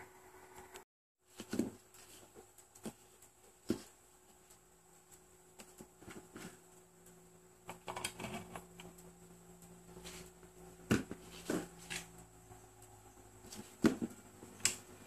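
Scattered sharp clicks and knocks of plastic mains plugs and a lamp socket adapter being plugged in, pulled out and set down on cardboard, over a faint steady hum.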